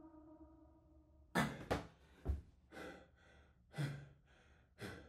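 The last notes of a song fade out, then a person breathes hard in loud, gasping breaths about every half second, out of breath after dancing. A low thump comes about two seconds in.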